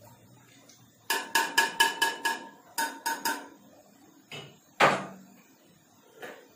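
A metal ladle clinking against the rim of a stainless steel cooking pot: a quick run of about six ringing taps, then three more, followed by a single louder knock and a couple of fainter ones.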